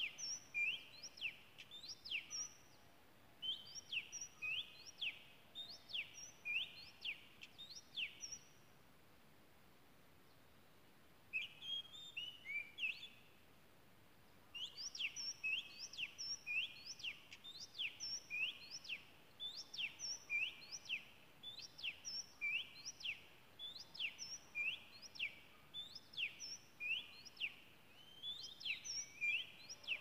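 Oriental magpie-robin singing: a long run of short whistled notes, each sliding steeply down in pitch, about two or three a second. The song breaks off twice in the first half, then runs on almost without pause.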